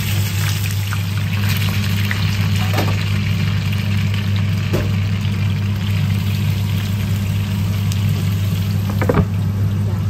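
Pan-fried buns sizzling in oil in a large flat iron pan, a steady frying hiss over a constant low hum. A few short knocks, the loudest about nine seconds in.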